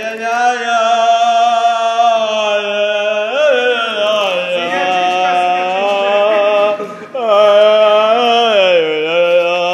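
A person's voice holding a loud, low droning chant-like tone with strong overtones, the pitch sliding slowly up and down; it breaks off briefly about seven seconds in and starts again.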